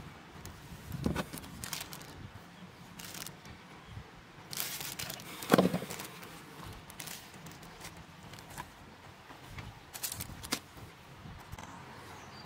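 Scattered handling noises while an oil filter is fitted: soft rustling of plastic wrapping and several light clicks and knocks, with one sharper knock about five and a half seconds in.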